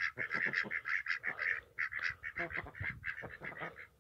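Domestic poultry calling: a rapid, nearly continuous run of short calls, several a second, with a short pause about a second and a half in.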